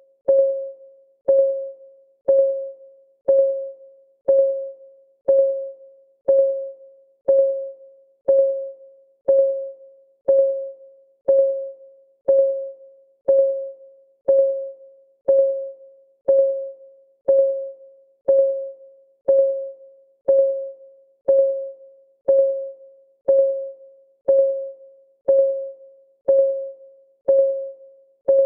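Countdown timer's clock ticking sound: one short, pitched tick about once a second, each dying away quickly, in an even beat.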